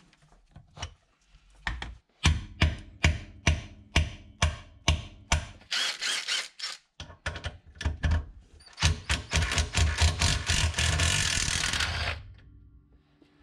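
Cordless impact wrench hammering on a rusted, seized ABS sensor bolt. It starts with a run of single blows at about three a second, then gives two longer bursts of rapid hammering, the last about three seconds long before it stops, as the bolt breaks loose.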